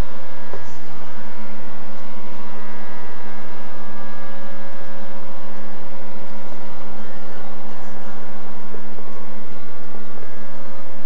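Steady electrical hum, with a low buzz and several higher steady tones over it.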